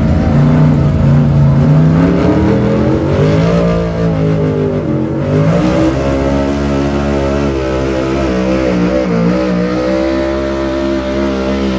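Gas engine of a late-1970s Ford F-series pickup running at high revs under full load while pulling a weight-transfer sled. Its pitch falls and climbs again around four to five seconds in, then holds fairly steady.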